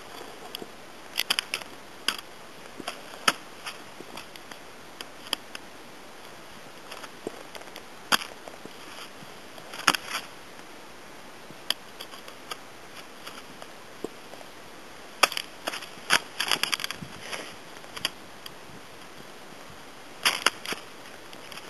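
Ski boots clicking and scraping against tech (TLT) pin binding toe pieces and the snow while stepping in. The sharp irregular clicks come in groups, the strongest about ten seconds in and a dense run a few seconds later.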